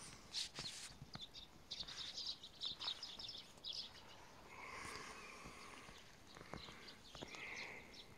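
Faint footsteps and rustling of spruce branches, with scattered short scratchy sounds and occasional ticks.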